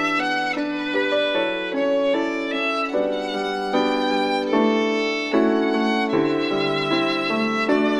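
Background music led by violin, playing a melody over string accompaniment.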